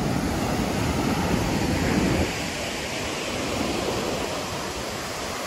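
Ocean surf breaking and washing onto a sandy beach, mixed with wind rumbling on the microphone; a little louder for the first two seconds, then easing.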